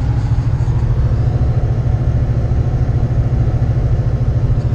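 Steady low drone of a car driving at highway speed, heard from inside the cabin: engine and road noise.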